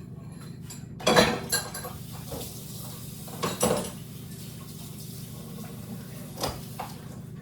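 Dishes and cutlery clattering as a meal is prepared: a cluster of clinks and knocks about a second in, another around three and a half seconds, and two short knocks near the end.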